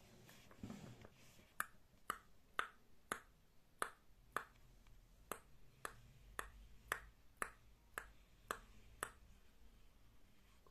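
Fingernails tapping on a notebook cover, about two crisp taps a second in an even rhythm, after a brief soft rustle of the notebook being handled.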